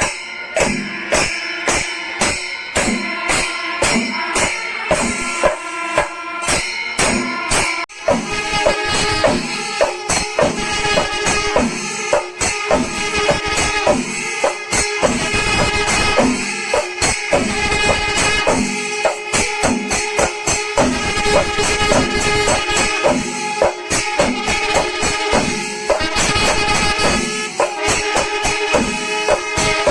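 Kerala chenda melam: chenda drums beaten with ilathalam hand cymbals clashing in a steady rhythm. About eight seconds in the playing becomes denser, with held tones sounding over the beat.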